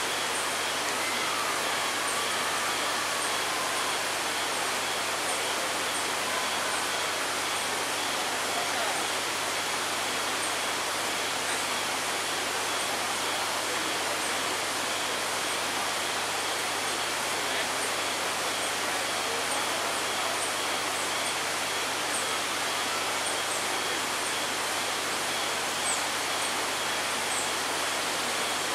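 Steady rush of flowing water, with a faint steady high insect-like tone and light scattered chirps over it.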